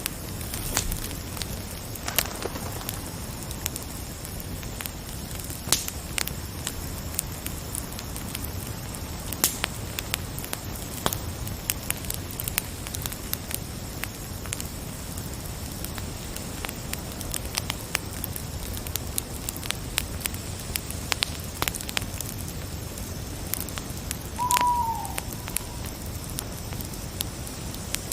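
Wood fire crackling steadily, with irregular sharp pops. About three-quarters of the way through there is one short call that falls in pitch.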